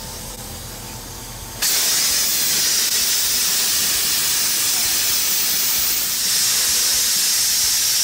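Loud, steady hiss of pressurized refrigerant blasting out of an AC condenser's service valve after a valve core removal tool let go under pressure. A quieter hiss jumps suddenly to full force about one and a half seconds in.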